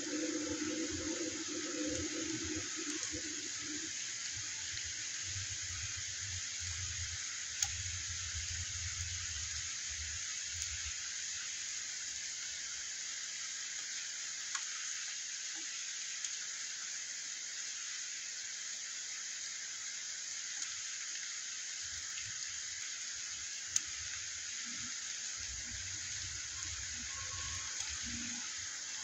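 Steady rain falling, an even hiss throughout, with a low rumble that comes and goes and a few sharp ticks, one about eight seconds in and one near the end.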